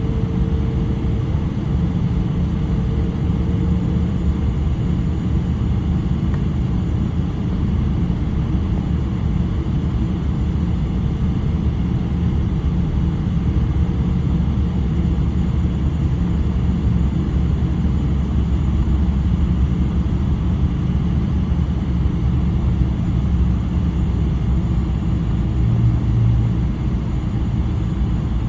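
Steady low rumble inside the cabin of a Boeing 777-300, from its Rolls-Royce Trent 800 engines and the airflow, holding level throughout.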